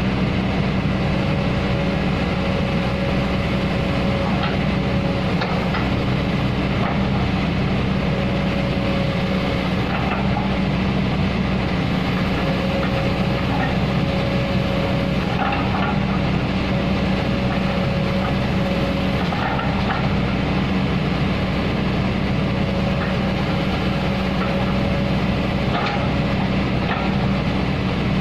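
Kobelco hydraulic excavator's diesel engine running steadily during a performance test, with a higher whine that comes and goes in stretches of a second or more and scattered short clicks and cracks as the bucket works.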